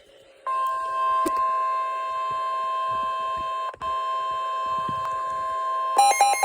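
Emergency Alert System attention tone: a steady electronic alert tone starts about half a second in and holds, with a momentary dropout partway through. Near the end it switches to a fast alternating warble. It signals that an emergency weather warning is about to be read.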